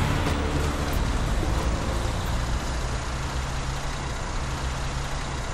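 Road traffic: a motor vehicle's engine hum and tyre noise going by, slowly fading away.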